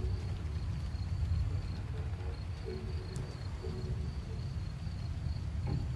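Crickets chirping at night: a thin, high chirp repeated evenly several times a second, over a steady low rumble.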